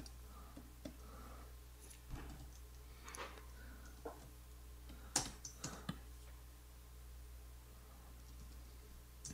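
Scattered computer keyboard keystrokes and clicks, a handful of short, sharp taps between about two and six seconds in, over a faint steady low hum.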